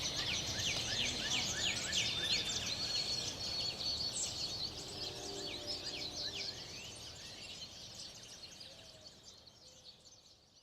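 Birds chirping, a dense run of quick, high, falling notes with a brief held whistle, fading out over the last few seconds.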